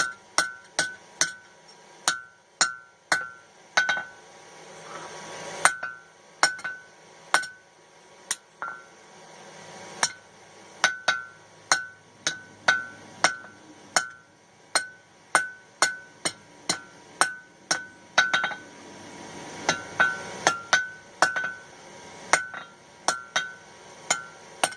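Blacksmith's hammer striking hot mild steel on an anvil, sharp blows about two a second in runs with short pauses, each blow leaving a brief ringing note: doming the nail header.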